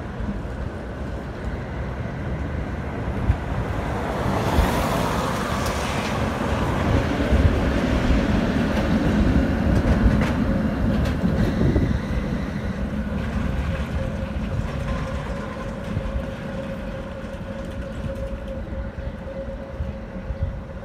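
Articulated electric tram rolling along street track: a low rumble of wheels on rails that grows as it approaches, is loudest as it passes close by about halfway through, then fades as it pulls away. In the last third a faint steady squeal rides over the rumble as the tram rounds a curve.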